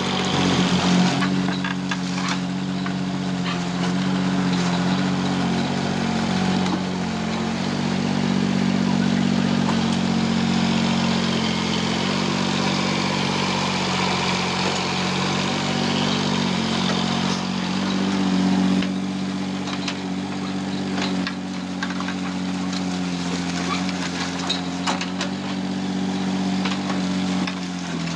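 Mini digger's diesel engine running steadily, its pitch dipping and rising as the hydraulics work the arm and bucket, with scattered knocks and scrapes from the bucket digging turf and dropping soil.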